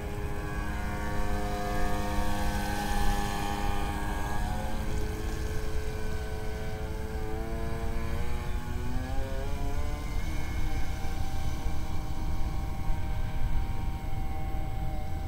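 Electric motor and 42 mm two-blade propeller of a radio-controlled V-hull boat whining as the boat runs across the water. The pitch climbs over a couple of seconds about two-thirds in, then holds steady, over a low rumble.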